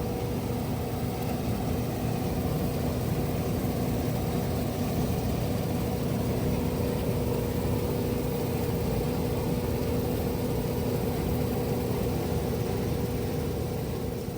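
Heavy farm machinery, a combine harvester at work, running steadily, with a constant hum over its engine noise.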